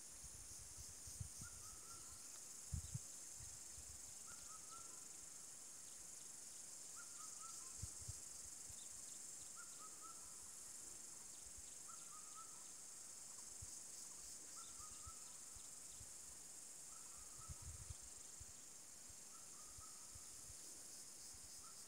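Steady high-pitched drone of forest insects, with a short two-part chirp repeating about every two and a half seconds, eight times, and a few faint low thumps.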